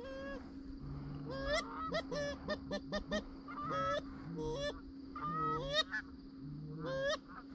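Canada geese honking and clucking, a quick, irregular run of calls with several overlapping.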